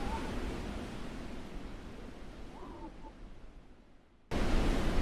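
Snowstorm wind noise that fades gradually over about four seconds to almost nothing, then cuts back in suddenly at full strength near the end.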